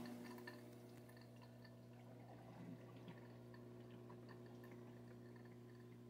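Faint steady hum of a Kapas countertop dishwasher running as its wash cycle starts, with faint scattered ticks and drips of water inside the tub.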